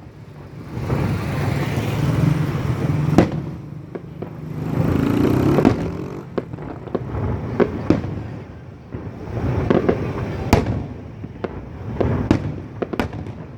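Fireworks bursting: sharp bangs at irregular intervals, a loud one about three seconds in and several in quick succession in the second half, over a steady low rumble.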